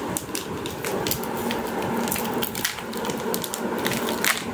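Crinkling and crackling of packaging being handled, a dense run of sharp crackles throughout.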